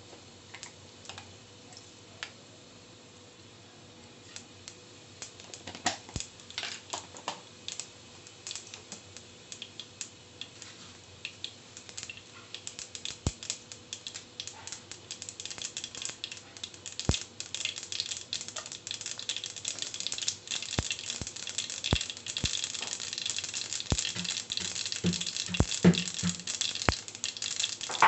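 Mustard seeds, cumin and dals sputtering and popping in hot oil for a tempering (tadka). There are sparse single pops at first, building over the second half into a dense, steady crackle with occasional sharper pops.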